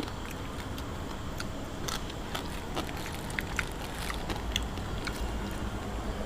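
A person chewing and biting boiled egg-filled frog, with irregular small clicks and crunches over a low steady rumble.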